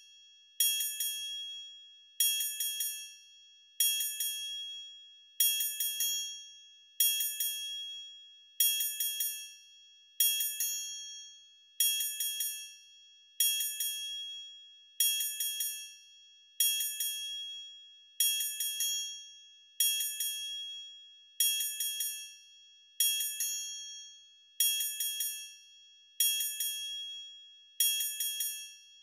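A small high-pitched bell or chime struck over and over, about every second and a half, each ding ringing out and fading before the next.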